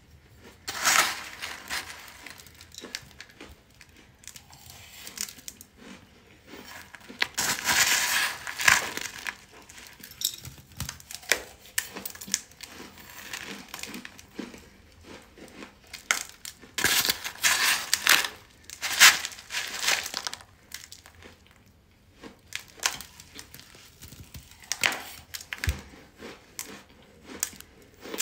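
Crisp crunching of hard, chalky white powder chunks being bitten and chewed from a spoon, in several bursts with quieter gaps between.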